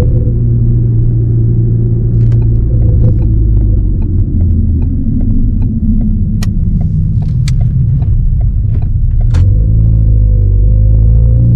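2018 Ford Focus ST's turbocharged 2.0-litre four-cylinder engine coming off the throttle. From about two seconds in, the exhaust pops and crackles in a long string of sharp cracks as the revs fall, the overrun crackles of a Stratified crackle tune through a Roush exhaust. Near the end the crackling stops and the revs climb again under acceleration.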